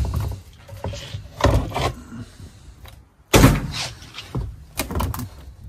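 Knocks and scrapes of a cut-out piece of fiberglassed wooden boat floor being pried loose and handled. There are a few separate knocks, the loudest about three seconds in.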